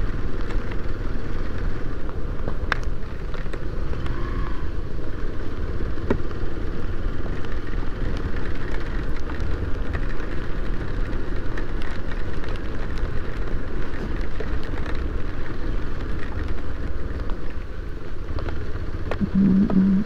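Hero XPulse 200's single-cylinder engine running under way on a wet, broken road, mixed with heavy wind noise on the microphone and occasional sharp ticks.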